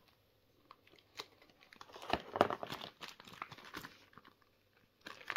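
A cardboard mailing box being cut open with a small blade and its clear plastic packing handled: scattered crinkles and short tearing sounds, the loudest about two seconds in.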